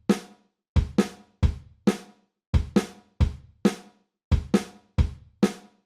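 Background music: a drum-kit beat of kick and snare hits, about two a second in a syncopated pattern, each hit dying away before the next.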